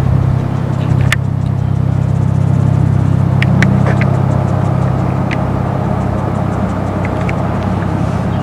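An engine running steadily at a constant speed, a loud low drone, with scattered sharp clicks over it.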